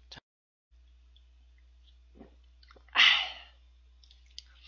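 A man sneezing once, sharply, about three seconds in, with a faint breath a moment before.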